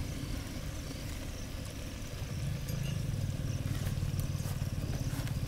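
A small engine, such as a motorcycle's, idling with a low, evenly pulsing rumble that grows louder about two seconds in, with a few faint ticks near the end.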